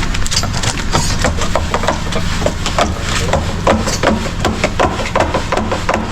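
Building-site work noise: a rapid, irregular run of short knocks and clinks over a steady low engine hum.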